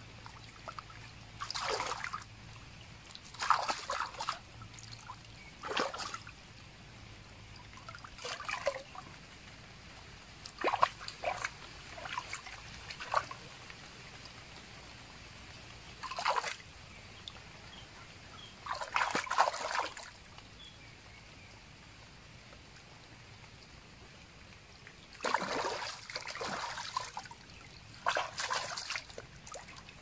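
Water splashing and pouring in about ten short, irregular bursts as a large coconut snail is dipped and rinsed by hand in shallow stream water, with water draining out of its shell. A faint steady stream runs between the bursts.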